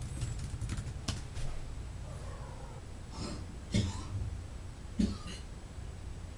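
A man coughing, two short harsh coughs about a second apart, over a steady low hum. It is the chronic cough of a heavy drinker and smoker.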